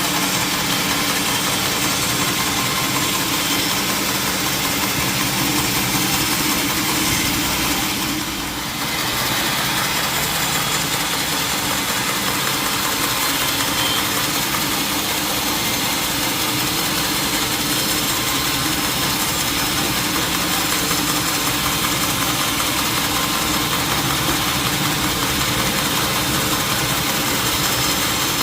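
Sawmill machinery running steadily, with a brief dip in level about eight seconds in.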